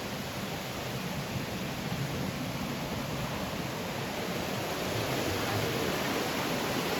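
A forest stream running steadily, an even rush of water that grows slightly louder about five seconds in.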